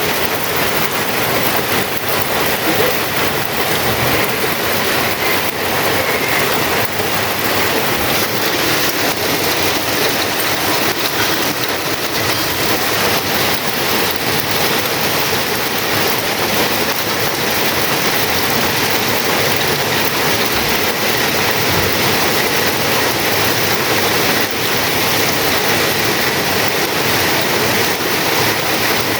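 Heavy rain falling steadily: a dense, even hiss without a break.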